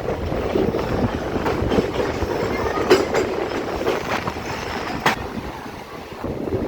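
Passenger train running, its wheels rumbling on the track with a few sharp clacks over the rail joints, heard from aboard.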